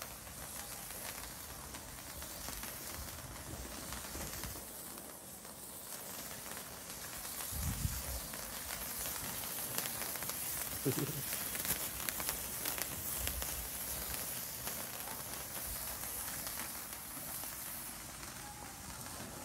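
Firework fountains spraying sparks: a steady hiss with fine crackling that thickens in the middle, and one dull thump about eight seconds in.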